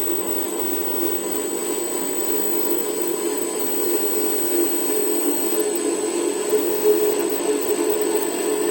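WM240 bench lathe running a thread-cutting pass on a left-hand 14 mm trapezoidal thread: a steady motor and gear hum with a thin, high steady whine, growing slightly louder toward the end.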